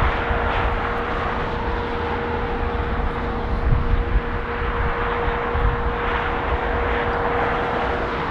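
Boeing 747's four jet engines running at taxi power: a steady jet hum with a constant mid-pitched whine.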